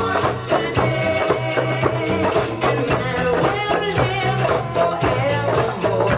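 Hand drums, doumbeks and a cajon, playing a fast, steady belly-dance rhythm, with a wavering melody over a low, sustained bass tone.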